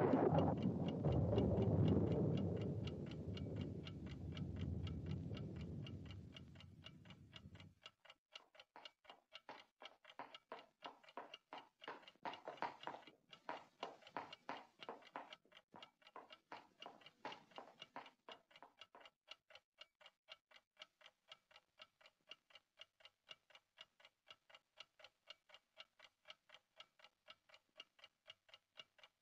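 Rumble of thunder dying away and stopping about eight seconds in, then a pendulum wall clock ticking steadily, tick-tock.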